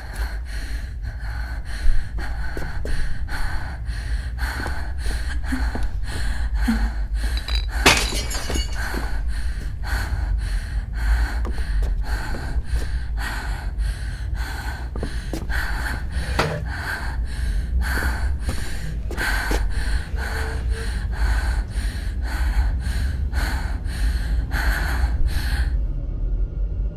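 A person gasping for breath in quick, even pulses, about two or three breaths a second, over a steady low rumble. A sharp crash of something breaking about eight seconds in. The gasping stops abruptly near the end.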